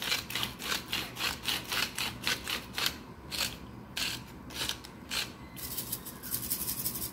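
Hand salt grinder being twisted, grinding salt: short rasping crunches about four a second, a few slower ones in the middle, then a quicker run of rasping near the end.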